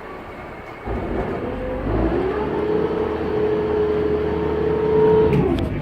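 Boat's engine revving: the pitch climbs about two seconds in, holds steady, then drops away near the end.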